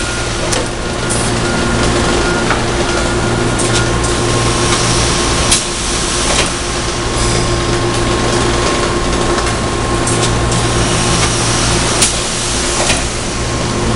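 Thermoforming line with its in-line shear running: a loud, steady machine hum and hiss with a few sharp clacks, the strongest about five and a half seconds in and again near the end.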